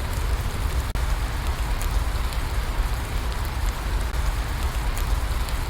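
Steady rain falling: a dense, even hiss over a low rumble, with scattered drop ticks. There is a momentary dropout about a second in.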